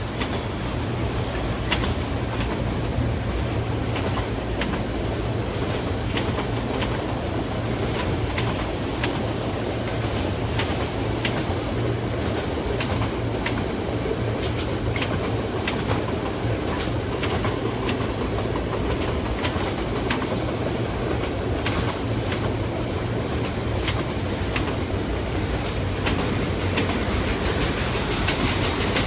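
Autorack freight train rolling past at close range: a steady rumble of wheels on rail, broken by irregular sharp clicks and clatter as the cars' wheels pass over the track.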